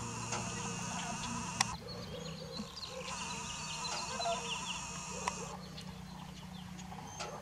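Birds chirping and calling, busiest in the middle, with a couple of sharp clicks.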